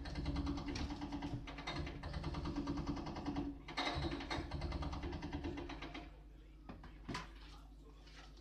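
JCB backhoe loader's diesel engine and hydraulics working hard with a rapid mechanical clatter as the backhoe arm works at a brick wall, pausing briefly twice. About six seconds in it drops to quieter running, with a single knock about a second later.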